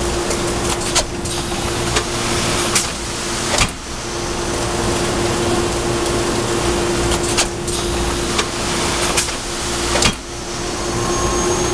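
Factory production-line machinery running with a steady hum and one constant tone. Sharp clacks come at roughly one-second intervals, pause for a few seconds in the middle, and the loudest comes near the end.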